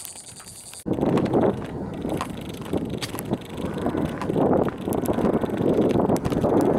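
Wind buffeting the camera microphone in uneven gusts, starting abruptly about a second in.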